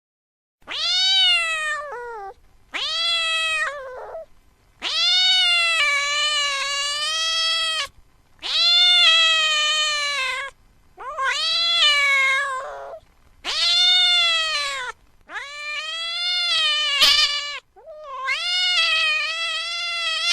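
Domestic cat meowing again and again: about eight long, drawn-out meows, each rising and then falling in pitch, with short pauses between them.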